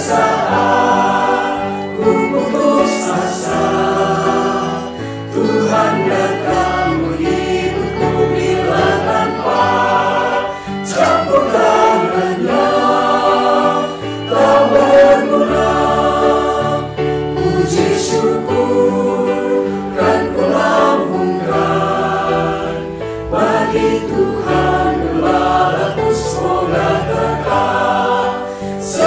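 Mixed choir of men's and women's voices singing a hymn in unison and parts, accompanied by keyboard and violin.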